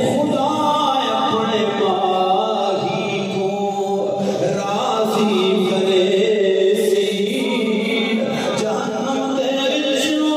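A man's solo voice chanting devotional verse in the melodic, drawn-out style of a naat recitation, unaccompanied and amplified through a microphone. The long held notes waver and glide from one to the next.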